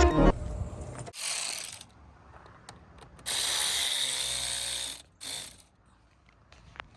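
Ratchet wrench clicking rapidly in three runs: a short one about a second in, a long one of nearly two seconds in the middle, and a brief one near the end, as the steering wheel is worked on.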